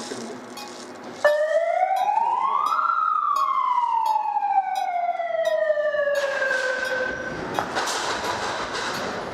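A siren sounds, starting suddenly about a second in. Its pitch rises for about a second and a half, then slowly winds down over about four seconds. Rustling and movement noise lies around it.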